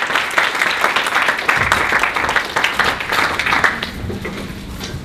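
Audience applauding, the clapping thinning and dying away about four seconds in.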